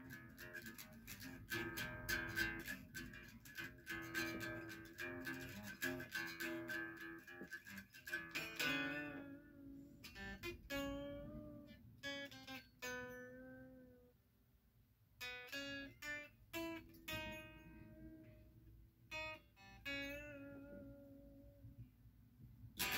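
SG-style solid-body electric guitar playing riffs. A fast picked riff runs for about the first eight seconds, then slower single notes are left to ring, with a brief pause a little after the middle.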